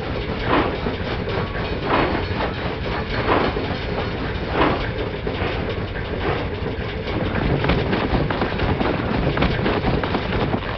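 A steady, loud rumbling noise, with a sharp clack about every second and a half through the first half.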